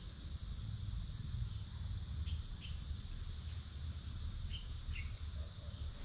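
Steady high-pitched drone of insects, with a few short bird chirps about two seconds in and again near the end, over a low rumble of wind.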